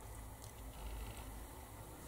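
Faint room tone with a low steady hum.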